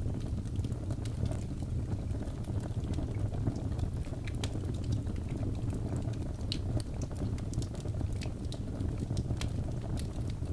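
Fire crackling in a fireplace: a steady low rumble of burning with frequent small, sharp crackles and pops.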